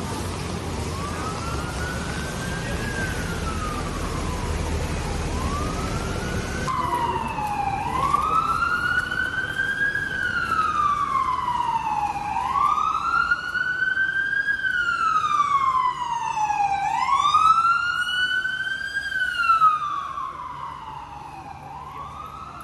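Emergency vehicle siren wailing, its pitch slowly rising and falling about every four to five seconds over steady street noise. It gets much louder a few seconds in and fades near the end.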